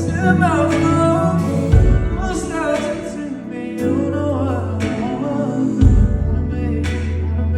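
A man singing a slow, gliding melody live, accompanied by piano chords over deep held bass notes.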